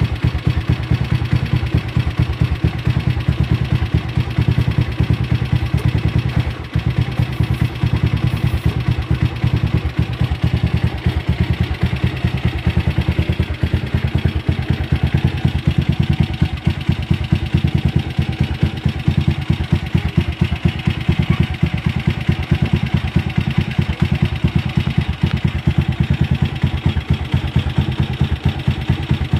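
Motorstar Xplorer Z200R's 200cc single-cylinder pushrod engine idling steadily, with a rapid, even beat of firing pulses.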